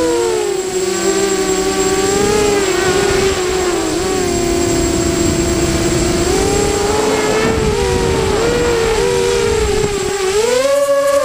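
Radio-controlled model aircraft's motor and propeller heard from on board in flight: a whine that keeps rising and falling in pitch with the throttle, climbing to a higher steady pitch near the end, over rushing air noise.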